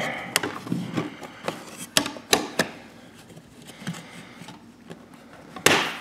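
Plastic outlet wall plate clicking and tapping against the receptacles and wall as it is test-fitted by hand: about six sharp clicks in the first few seconds, then a brief rush of handling noise near the end.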